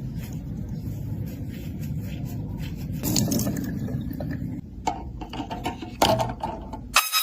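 Scraping and clicking over a steady low rumble, all cutting off abruptly near the end.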